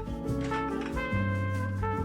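Background music: held melody notes over a moving bassline, with regular drum hits.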